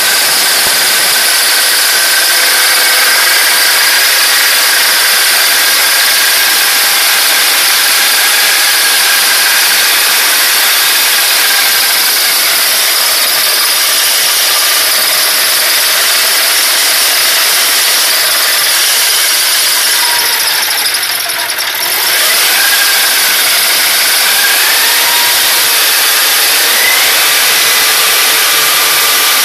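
Engine of a biomass-gasifier generator set running steadily, loud and close, with its exhaust coming through a loose muffler held by hand against the outlet. It goes briefly quieter for about a second around two-thirds of the way in.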